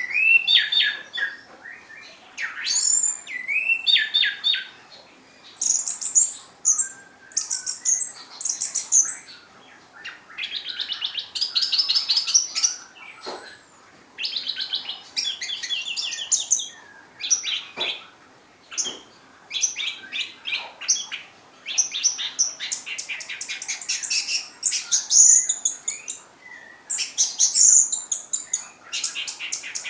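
Orange-headed thrush singing: a long run of quick, varied phrases of rapid high trills and chirps, with short pauses between phrases.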